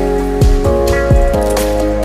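Background music with a steady beat: sustained pitched notes over regular low drum hits.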